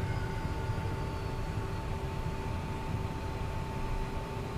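Cockpit noise of a Cessna Citation M2 taxiing, its twin Williams FJ44 turbofans at idle: a steady low rumble with a constant whine.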